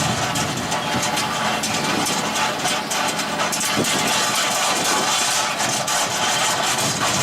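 Excavator's diesel engine running steadily, powering the triple-blade stone saw attachment, with a dense, even mechanical noise.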